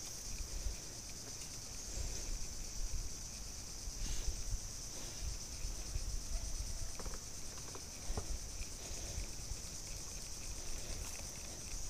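A steady, high-pitched insect drone from the mangrove, over a low rumble and a few faint ticks.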